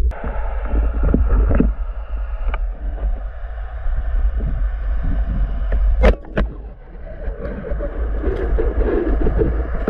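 Water noise from an underwater camera: a steady heavy rumble with a few sharp clicks and knocks, two of them close together about six seconds in.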